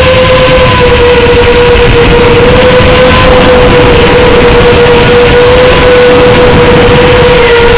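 FPV quadcopter's electric motors whining at a near-constant pitch that wavers slightly with throttle, over a steady rush of prop and air noise.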